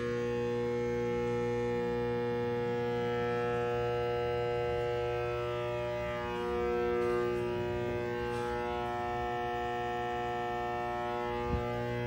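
Electrical transformer in a ventilated cabinet giving a steady electrical hum with many overtones, the buzz of an energised transformer. A single short knock near the end.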